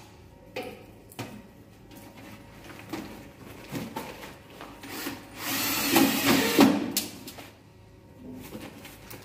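Cordless drill running for about two seconds, a little past the middle, working on a sheet-metal exhaust fan housing, with scattered knocks and handling clicks before and after.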